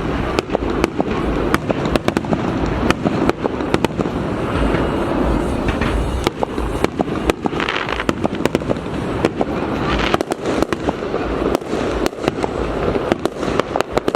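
Aerial fireworks display: a rapid, irregular string of sharp bangs and cracks, several a second.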